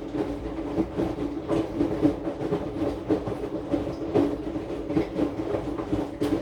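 Aqua AQW-DX12M drum washing machine running with its drum turning: a steady motor hum with irregular knocks, two or three a second, from the load tumbling in the drum, picked up through the machine's top panel.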